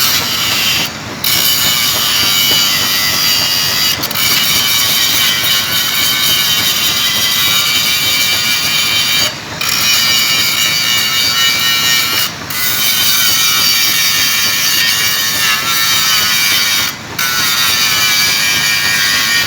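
Metalworking on stainless steel pipe: a steady, loud hissing whine that breaks off briefly four times.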